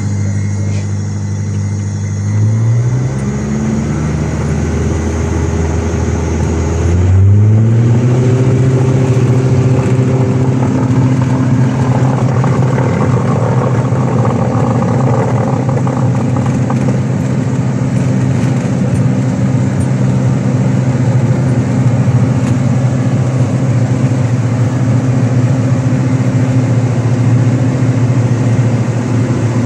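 Single-engine light aircraft's piston engine heard from inside the cabin, running at low power, then rising in pitch in two steps, about two and a half and seven seconds in, and held steady and louder at high power, as when the throttle is opened for the takeoff run.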